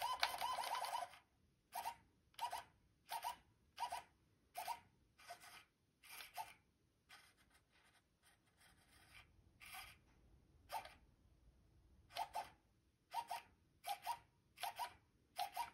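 CHAServo LV06 sub-micro servo running on a fully charged single-cell LiPo (4.2 V), sweeping quickly back and forth: a short buzz of its motor and gears with each move, repeated about twice a second, with a pause of a couple of seconds in the middle. It shows only slight double centering when returning from the ends of its travel, not anything critical.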